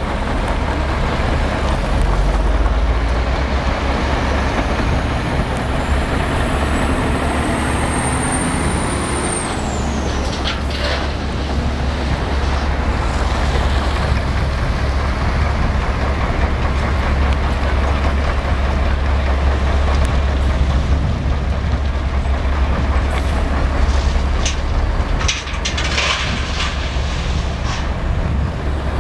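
Heavy diesel construction machinery and road traffic running steadily, with a high whine that rises for several seconds and falls away about ten seconds in, and a few sharp knocks later on.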